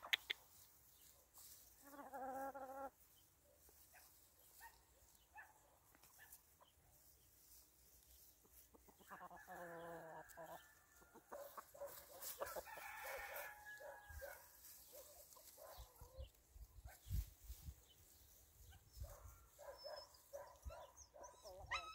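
Chickens calling faintly: a short call about two seconds in, a longer rooster crow about nine seconds in, and hens clucking several times afterwards.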